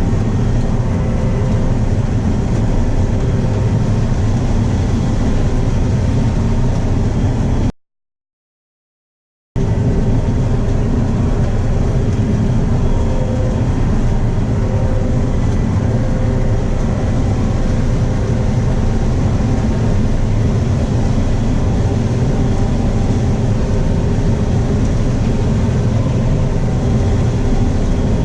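Combine harvester running steadily while harvesting corn, heard from inside the cab: a constant engine and machinery drone with a few held hums. The sound cuts out completely for about two seconds a little over a quarter of the way in.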